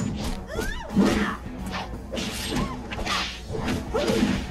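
Sound effects of an animated fight: quick whooshes and hits, with the loudest impact about a second in, over background music.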